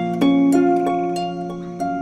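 Background music: a harp playing a gentle melody of plucked notes, one every half second or so, each ringing on under the next.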